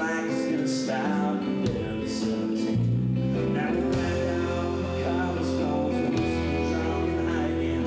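Live country music: a man singing over a strummed acoustic guitar, with a low bass part coming in about three seconds in.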